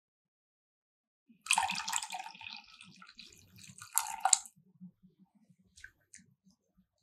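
Liquid being poured and splashing into a bowl in the kitchen. It starts suddenly about a second and a half in and fades, with a second short splash near the middle.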